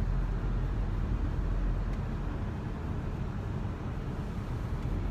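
Steady road and tyre noise with the engine's hum, heard from inside a car's cabin as it drives through a road tunnel.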